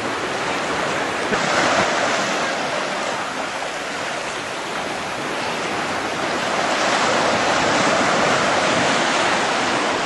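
Ocean surf breaking and washing onto the shore, a steady rushing that swells about two seconds in and again after about seven seconds.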